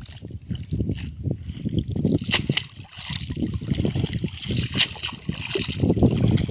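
A wet cast net being hauled out of shallow muddy water, with water splashing and sloshing in irregular short bursts as the mesh is lifted and dragged.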